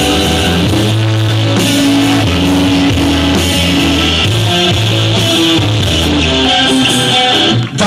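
Live band playing an instrumental passage: electric guitar over drums and a bass line of changing low notes, with no vocals.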